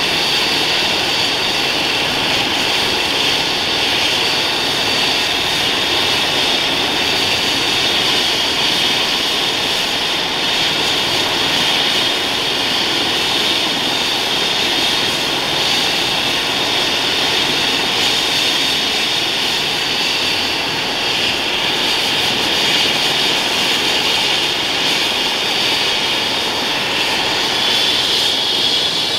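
Airbus H135 helicopter running on the ground with its main rotor turning: a steady turbine whine over the rotor's rush, warming up after engine start. The whine rises slightly near the end.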